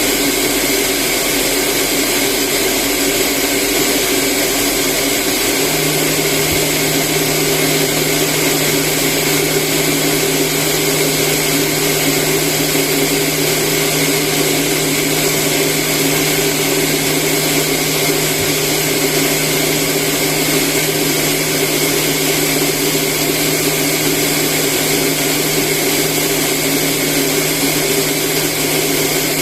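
Household rice polishing machine running steadily, milling brown rice into white rice; a low steady hum joins in about six seconds in.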